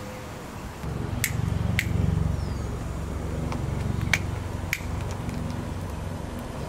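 Sharp finger snaps, two pairs about half a second apart, over a low rumble that starts about a second in.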